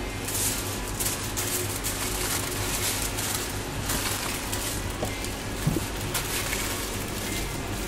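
Aluminium foil crinkling and rustling as a burrito is wrapped and rolled in it by hand, over a steady low hum, with one short knock about three-quarters of the way through.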